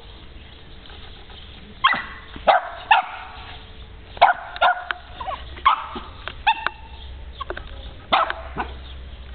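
Small dog barking: about eight short, sharp barks, irregularly spaced, starting about two seconds in.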